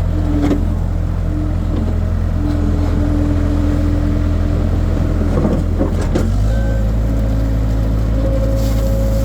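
Skid steer engine running steadily, with whining tones above it that shift in pitch. About six seconds in there is a short burst of clatter and the engine note changes.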